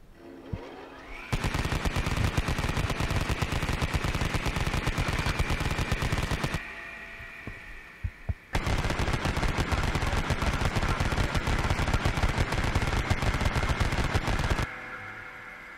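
Airsoft gun firing on full auto: two long, rapid bursts of about five to six seconds each, with a short pause between them. A steady high whine runs under the shots; it rises just before the first burst and lingers after the second.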